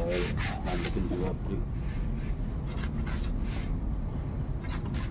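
Several irregular rubbing or scraping strokes from hands working at something on the ground, over a steady low rumble.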